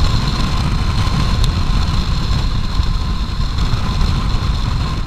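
Piaggio Medley 125 scooter's single-cylinder engine running hard at high speed, its pitch holding nearly steady with a thin high whine over it, under heavy wind rumble on the microphone.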